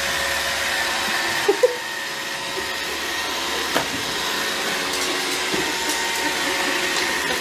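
An electric motor running steadily with a rush of air and a steady whine, like a vacuum cleaner, with a couple of brief short sounds about a second and a half in.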